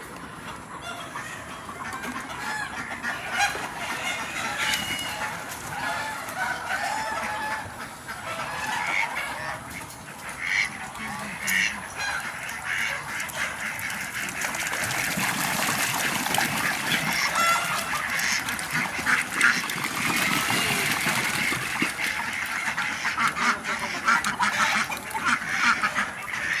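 A flock of farm poultry calling, many short overlapping calls at once, with a stretch of hissing noise over the calls midway.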